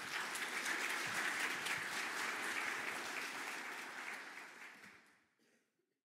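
Audience applauding, tapering off and dying away about five seconds in.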